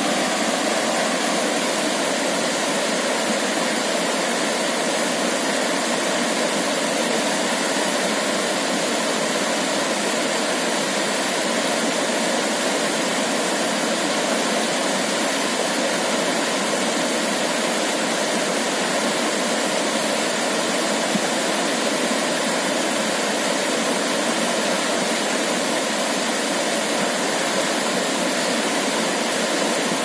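Steady rush of water from a shallow rocky stream tumbling in small cascades over boulders, even and unbroken with little deep rumble.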